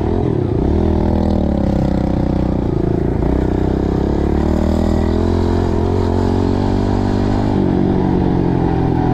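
Kawasaki 110 dirt bike's small single-cylinder four-stroke engine running under way, its pitch rising and falling with the throttle, over wind and road noise.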